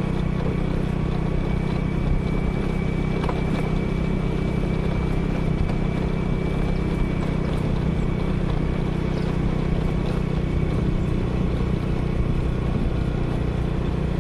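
Motorcycle engine running at a steady speed while riding along a lane, a steady hum with road and air noise.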